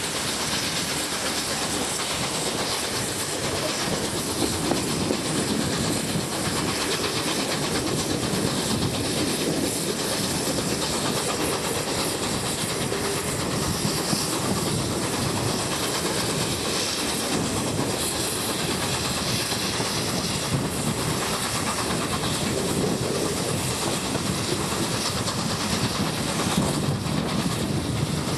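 Steam-hauled excursion train behind A1 Pacific 60163 Tornado rolling past at a steady loudness, its wheels clattering over the rails amid a continuous rushing noise.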